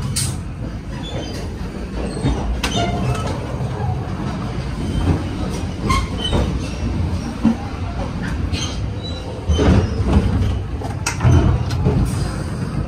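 Interior running noise of a CFM D1M diesel multiple unit: a steady low rumble with frequent knocks and rattles from the cars and gangway.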